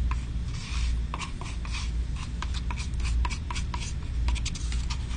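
Metal spatula scraping and scooping wet dental stone against the sides of a flexible rubber mixing bowl, many short irregular scrapes and clicks, over a steady low hum.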